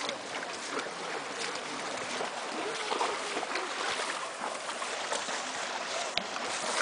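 Shallow river water splashing and rushing as a carabao pulls a cart through it: a steady rush of churned water with many small irregular splashes, and one sharp click about six seconds in.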